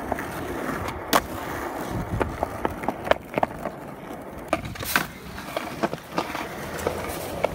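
Skateboard wheels rolling over rough pavement in a steady rumble, with several sharp clacks of the board.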